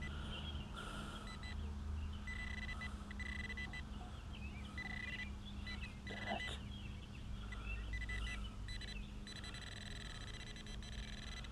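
A metal detector's steady high-pitched tone sounding on and off, for a second or so at a time, as it signals metal still in the hole. Birds chirp in the background.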